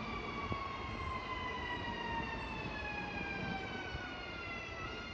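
Electric whine from a Škoda 16Ev electric multiple unit's traction drive as the train runs past, with a low rumble of the train beneath it. The whine has several pitches sliding steadily down together, then jumps back up near the end.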